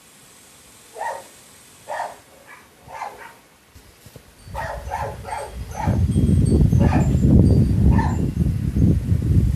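A dog barking in short single barks, about one a second, becoming more frequent partway through. From about four and a half seconds in, a loud low rumble comes in under the barks and stays.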